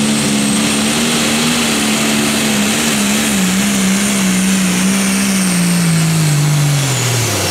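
A John Deere Pro Stock pulling tractor's turbocharged diesel engine runs at full power dragging the sled, with a high turbo whistle over the engine note. From about three seconds in the engine pitch slowly sags, then drops steeply near the end as the engine bogs down and loses power under the sled's load.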